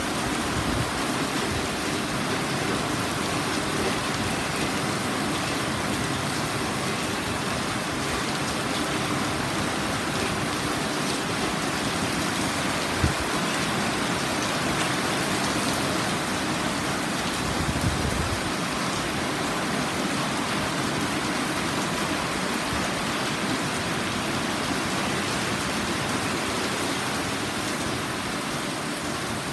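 Heavy sudden downpour: rain pouring steadily onto pavement, plants and nearby surfaces in an even, dense hiss. A single sharp click about thirteen seconds in.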